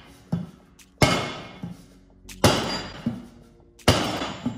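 Steel rear roller of a Scott Bonnar Supercut reel mower being bumped down end-first onto a wooden block to drive its sections apart: three heavy thuds about a second and a half apart, each followed by the ringing of the steel tube, with a couple of lighter knocks between.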